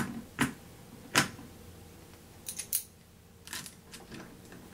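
Steel hex key clicking and tapping against the central mounting screw of a sander's backing pad as it is fitted into the screw head and turned. The clicks are light and separate, with a small quick cluster about halfway through.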